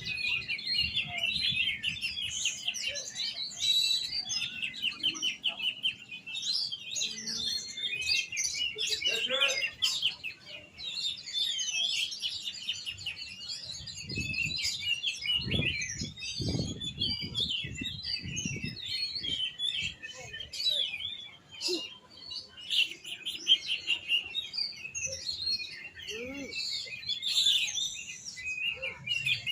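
Oriental magpie-robin (kacer) singing continuously: a fast, unbroken run of varied high chirps, trills and whistles. A few low thumps come in around the middle.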